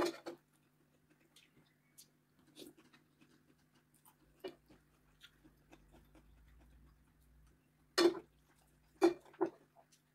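Metal fork and spoon clinking and scraping against a plate while eating, with soft chewing between; the loudest clinks come about two-thirds of the way in and again a second later. A steady low hum runs underneath.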